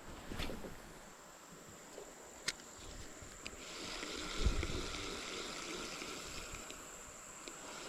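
Quiet creek sounds from a kayak: a few sharp clicks and small knocks, a low thump about four and a half seconds in, and an even hiss of moving water that rises about three and a half seconds in, over a steady high thin drone.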